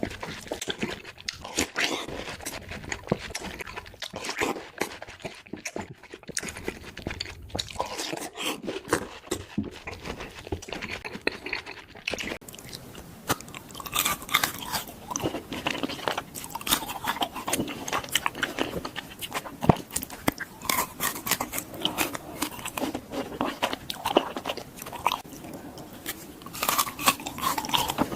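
Close-miked chewing and biting of frozen fruit, with many irregular crunches.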